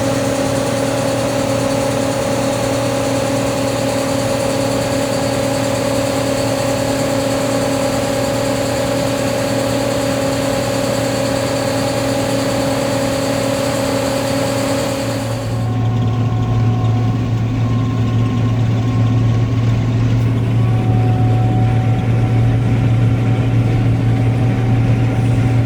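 A large diesel engine of farm machinery running steadily at constant speed with a continuous drone. About fifteen seconds in, the sound changes abruptly: the hiss drops away and the low hum becomes stronger and deeper.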